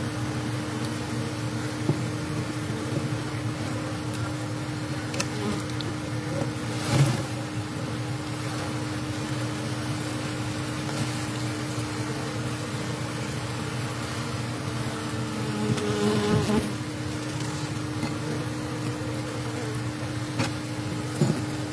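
Honeybee colony buzzing steadily, with two brief louder swells about a third and three quarters of the way through. The bees are a lot calmer, a sign that most of their brood comb has been removed.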